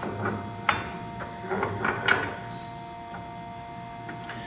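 Steel coil spring clanking and rattling against the front suspension as it is worked up into place: a few sharp metal knocks, then a cluster of rattles about two seconds in. A steady hum runs underneath.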